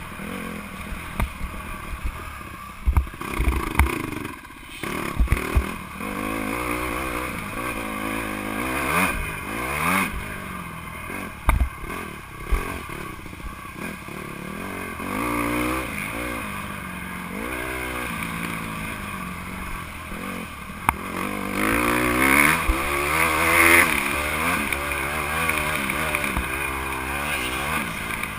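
Honda CRF150R's single-cylinder four-stroke engine revving up and down, rising and falling in pitch again and again as the dirt bike is ridden round a motocross track, heard from the rider's helmet. Several sharp loud knocks stand out in the first dozen seconds.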